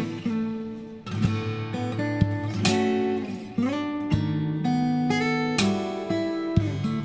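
Background music: acoustic guitar playing plucked and strummed notes, with some sliding notes.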